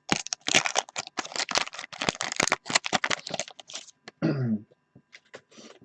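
Rapid crinkling and rustling of a trading-card wax pack and its cards being handled and opened, with a brief vocal murmur about four seconds in.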